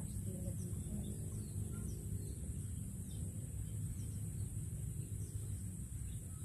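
Rice-field ambience: a steady high-pitched insect drone and short falling chirps every second or so, over a steady low rumble.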